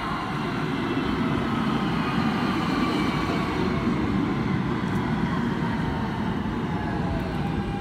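R160B New York subway train running, a steady rumble with the electric propulsion's whine on several tones above it. The tones slide slowly lower as the train slows.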